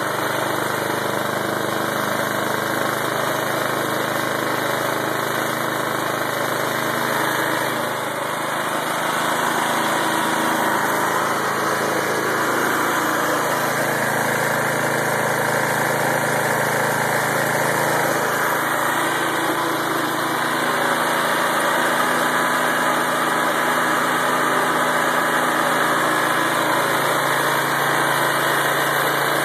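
Small single-cylinder lawnmower engine, converted to run on propane fed straight into the carburetor, running steadily at idle. It dips slightly about eight seconds in and runs a little louder in the last third.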